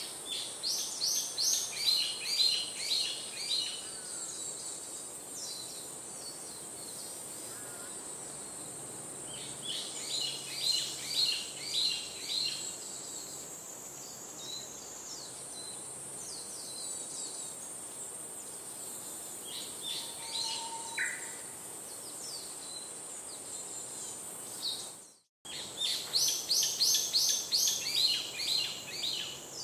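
A songbird singing runs of quick, repeated high chirps three times, each run lasting a few seconds, over a steady high-pitched insect drone. The sound drops out briefly about 25 seconds in.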